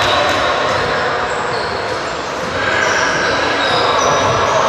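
Reverberant gym sound of a basketball game: a ball bouncing on the hardwood and short high sneaker squeaks over a steady haze of voices.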